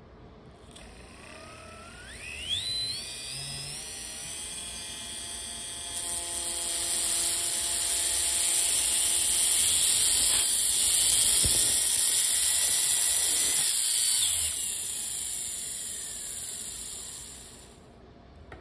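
Small brushless motor spinning a 3D-printed ball bearing up to high speed. A whine rises in pitch over the first few seconds and settles into a steady high whine with a loud hiss that keeps growing. Then it fades and drops in pitch as it slows, stopping shortly before the end.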